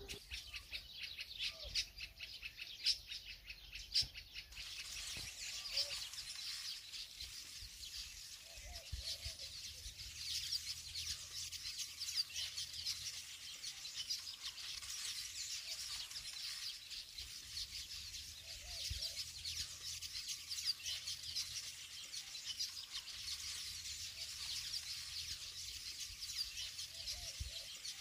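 Many small birds chirping in a dense, continuous twitter. A few sharp ticks stand out in the first four seconds or so.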